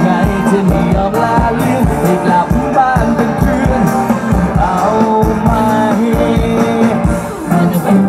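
Live band playing an upbeat pop song with a steady drum beat and keyboards, and a male voice singing over it through the stage PA.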